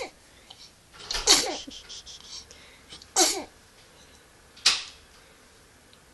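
A person sneezing three times, about a second and a half to two seconds apart. The first two sneezes end with a voice that falls in pitch, and the third is a shorter, sharper burst.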